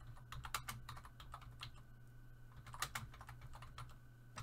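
Computer keyboard typing: a quick run of key clicks in the first second, then scattered keystrokes, over a faint low hum.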